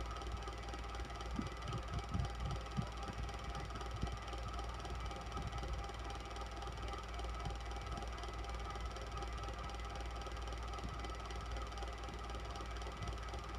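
Electric fan running steadily: a constant motor hum and whir of the blades, with a few soft low bumps about two seconds in.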